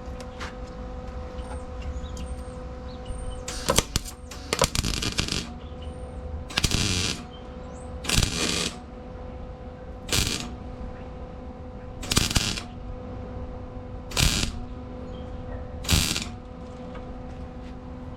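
Wire-feed welder arc crackling in about seven short bursts roughly two seconds apart, filling small holes in thin sheet steel a little at a time to avoid burning through. A steady hum runs underneath.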